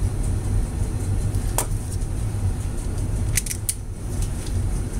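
Steady low background rumble with a few small sharp clicks of a hand tool, wire strippers working a wire and being set down on the bench: one click about a second and a half in and a quick cluster of three a little past halfway.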